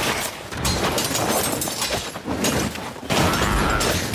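Anime battle sound effects: rapid clashes and impacts of blades striking one another, one hard hit after another, growing louder about three seconds in.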